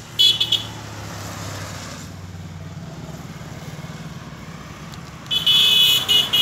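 Road traffic passing: a short vehicle horn honk about a quarter second in and a longer honk of about a second near the end, with a passing vehicle's engine running low in between.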